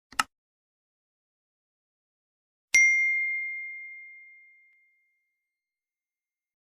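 A very brief click-like burst, then about two and a half seconds in a single bell ding that rings at one clear pitch and fades away over about two seconds: a sound effect played by the Trailshred Audio Player component on the Salesforce page.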